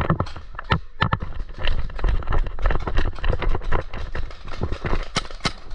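Running footsteps and gear rattling close to a helmet-mounted microphone: a dense run of irregular clicks and knocks over a low rumble, with two sharp cracks about five seconds in.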